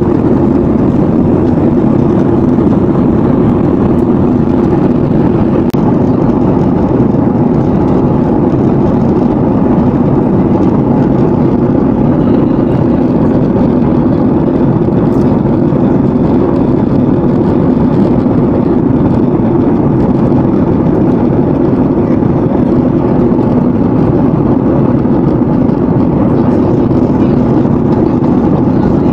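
Steady, loud cabin noise of a Boeing 737-800 airliner in flight: a constant rumble of the engines and airflow heard from inside the cabin.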